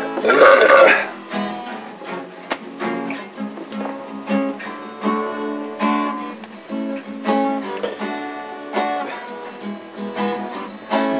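Acoustic guitar music with strummed chords, playing steadily. A brief loud shout cuts in over it in the first second.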